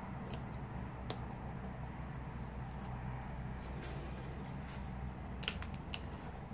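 Cardstock being handled: faint paper rustling and a few light clicks as the card is folded over and pressed down onto red line tape, over a steady low hum.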